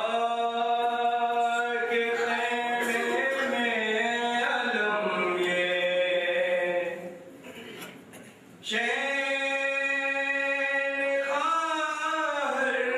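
A man's voice chanting a Muharram lament in long, held melodic notes, unaccompanied. It comes in two phrases with a short break about seven seconds in.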